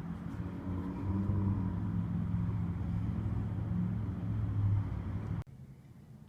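A steady low mechanical hum that cuts off abruptly near the end.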